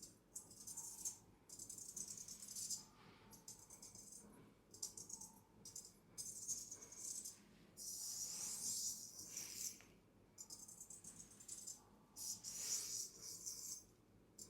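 Barber's straight razors clicking and jingling against each other in quick runs with short pauses, the rhythmic metal-on-metal play of the 'jumping three knives' technique; twice the clicks merge into a longer, brighter rasping passage.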